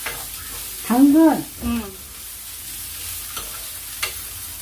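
Julienned carrots sizzling as they are stir-fried in a little oil in a frying pan, with a spatula stirring and now and then tapping sharply against the pan.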